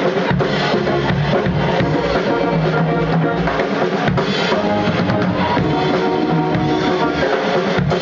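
Live Haitian band playing, with the drum kit's bass drum and snare to the fore over congas, saxophone and other pitched instruments. The music runs loud and steady.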